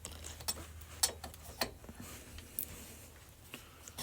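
Loosened bolts and small metal parts being taken off a Kawasaki Bayou 220 engine's top end and set down: a string of irregular small metallic clicks and clinks over a faint low hum.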